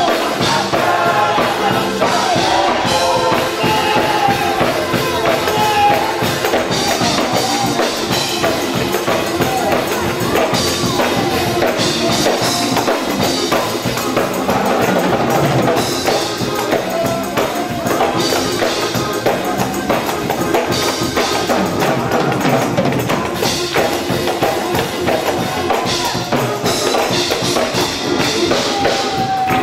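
Live gospel praise music: a group of voices singing over steady rhythmic hand clapping and percussion.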